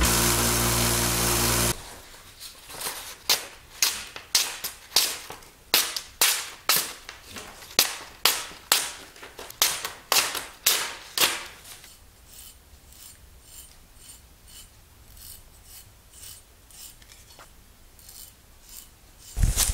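A belt sander running briefly, then cutting off suddenly. Then a freshly sharpened hatchet edge slicing through a sheet of paper in quick strokes, about two a second, followed by softer scraping as the blade shaves hair off a leg: tests of the edge's sharpness.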